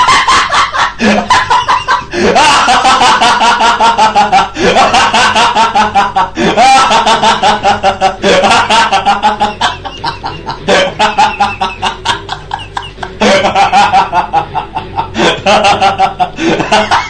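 A laughter sound effect: a person laughing 'hahaha' in rapid, high cackling pulses. It comes in about eight bouts, each starting with a rising pitch.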